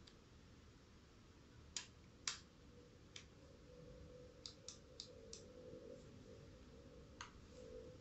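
Sparse sharp clicks and taps from hands handling the plastic body of a Mi Anion portable hair dryer: two louder clicks about two seconds in, then a quick run of four light clicks, and one more near the end, over near silence.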